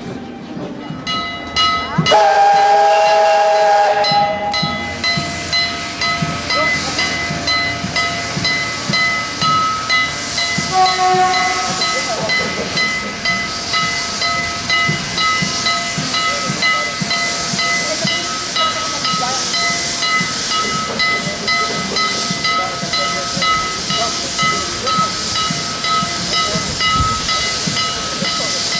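Narrow-gauge steam locomotive giving a loud whistle blast about two seconds in, then hissing steam with a steady tone over it and rhythmic puffing.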